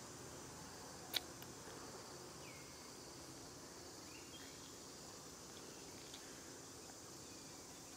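Steady, faint high-pitched insect drone, with one sharp click about a second in and a few faint chirps.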